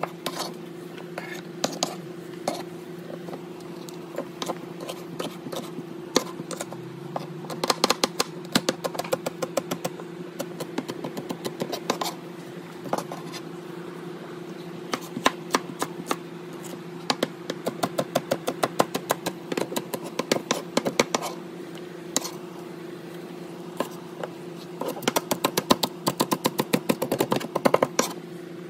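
Chef's knife chopping cherry tomatoes and green onions on a hard cutting board: runs of quick knife strikes, several a second, with pauses between. A steady low hum runs underneath.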